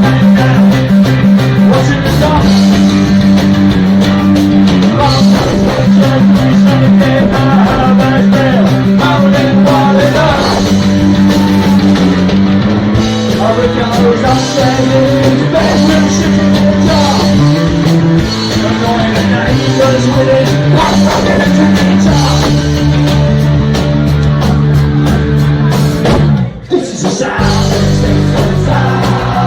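Punk rock song with a singer, electric guitars and drums, loud and driving; the band stops briefly for a beat near the end.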